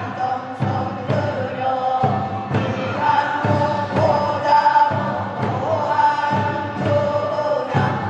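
A group of voices singing a North Pyongan west-coast fishermen's work song in unison, in chanted phrases with short breaks, over a steady drum beat.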